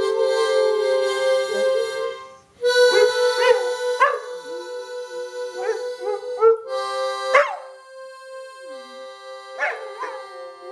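A harmonica plays held chords, breaks off about two seconds in, then carries on. A boxer dog howls along in several short rising-and-falling howls.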